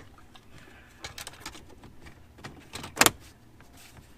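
Scattered small clicks and knocks of plastic interior trim and wiring being handled and refitted inside a car's centre console, with one sharp, louder clack about three seconds in.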